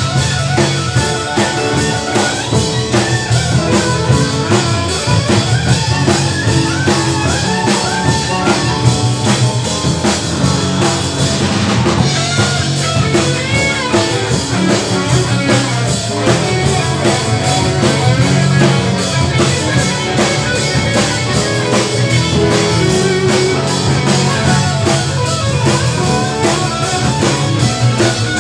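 Live jazz-rock fusion band playing: drum kit keeping a steady rock beat under electric bass and electric guitar, with electric violin in the mix.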